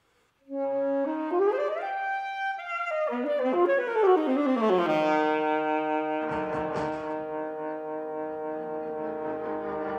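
Alto saxophone playing contemporary music with an electronic tape part of processed instrument sounds. After a brief silence it enters about half a second in with sliding, rising notes, then settles into several tones held at once, with a noisy swell about six seconds in.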